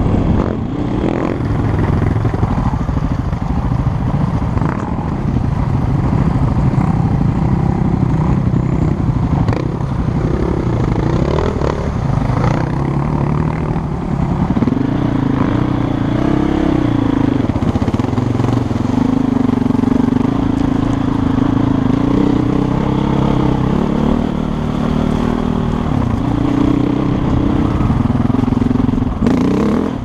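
KTM 450 EXC enduro motorcycle's single-cylinder four-stroke engine running off-road, revs rising and falling, with a few quick rises in revs about a third of the way in, then holding a steadier, higher note for most of the second half.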